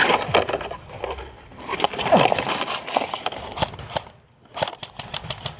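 Airsoft guns firing: a scattered string of sharp snaps, with a quick burst of several shots about four and a half seconds in.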